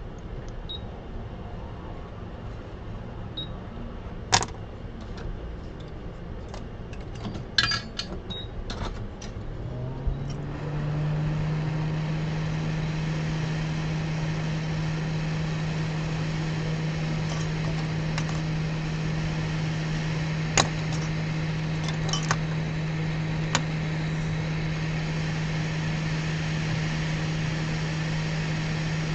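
Hot-air rework station blowing onto a laptop logic board to heat the soldered SSD chips for removal: a steady low hum and airflow hiss that comes up about a third of the way in and then holds level. Before it, a few sharp clicks and taps from tools on the board.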